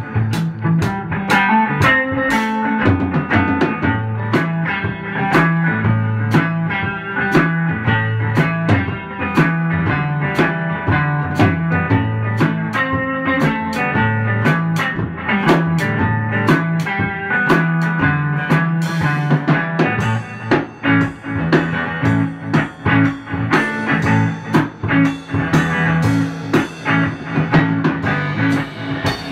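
Electric guitar, a Fender Stratocaster through a Fender Princeton Reverb amp, improvising over a drum kit with a steady beat.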